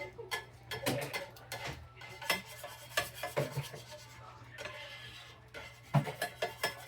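A cooking utensil scraping and clinking against a frying pan in irregular strokes, the loudest knock about six seconds in.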